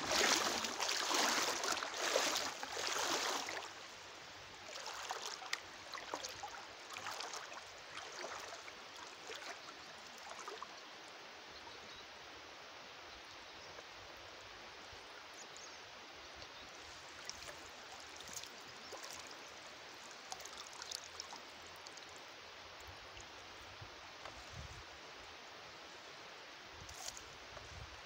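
Water trickling and dripping as a fine-mesh fishing net is hauled in by hand from a shallow river, with louder sloshing for the first three seconds or so, then a steady quiet trickle with scattered drips.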